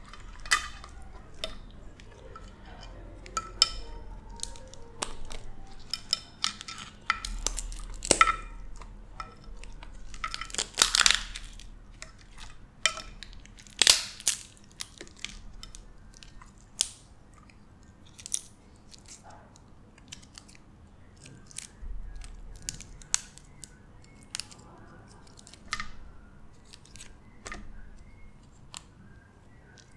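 Cooked blue crab shells being cracked and torn apart by hand, with crunching and chewing close to the microphone: many irregular sharp cracks, the loudest around 11 and 14 seconds in.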